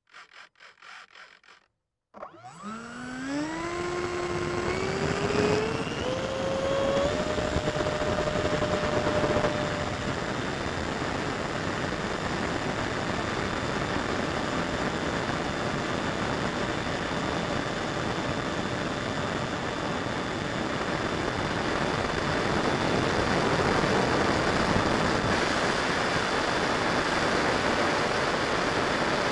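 Freewing F-35's 70 mm electric ducted fan spooling up from rest after a couple of seconds of faint rapid pulsing: a whine that rises in steps over about five seconds. It then runs steadily at full power with a loud rush of air, heard from under the fuselage through takeoff and climb.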